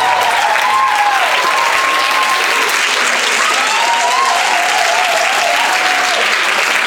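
An audience applauding, with a few voices calling out over the clapping.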